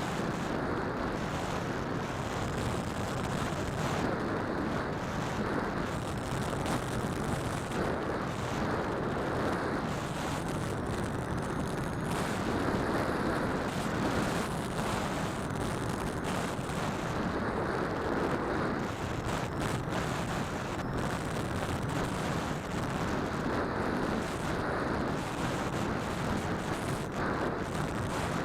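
Phantom quadcopter's motors and propellers running steadily in flight, heard through an onboard keychain camera's microphone as a steady rushing noise mixed with wind buffeting the mic.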